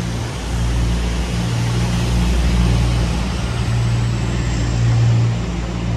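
Steady low hum and rumble of road traffic, with an engine-like drone underneath.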